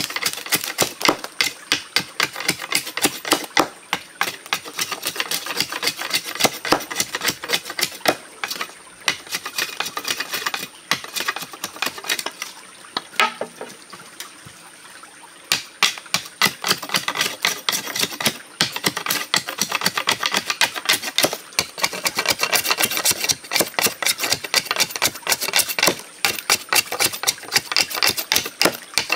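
A large knife scraping shavings off a bamboo pole in quick, repeated strokes, several a second, pausing briefly about halfway through.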